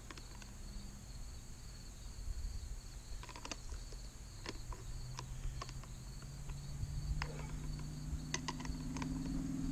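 Scattered small metal clicks and taps of a wrench and hands working at the bar nuts and side cover of a Kobalt 80V cordless chainsaw, over steady insect chirring. A low engine hum grows from about halfway through.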